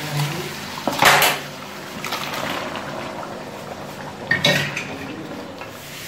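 Cookware clattering in an aluminium karahi, with liquid sloshing, as pressure-cooked mutton and its broth go into the pan and a wooden spoon stirs them. There are two loud clatters, one about a second in and one at about four and a half seconds.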